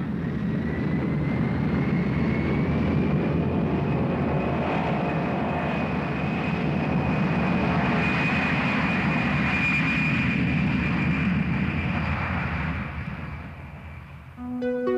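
Jet aircraft engines running with a steady noise and a high whine that rises in pitch over the first few seconds, then holds steady. The sound fades near the end as music comes in.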